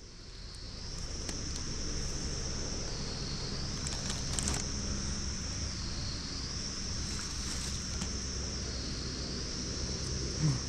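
Steady, high-pitched insect drone that dips and rises in pitch about every three seconds, over a low rumble of wind, with a few brief rustles.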